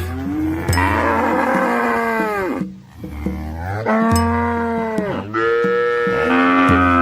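Red village cattle mooing: about four long, drawn-out moos one after another, with short gaps between them.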